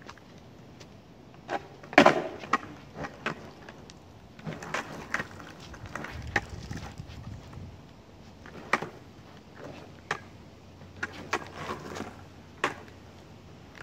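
Skateboard knocking and clacking on asphalt during freestyle tricks: a string of sharp, irregular knocks as the deck and wheels are flipped and landed, the loudest about two seconds in.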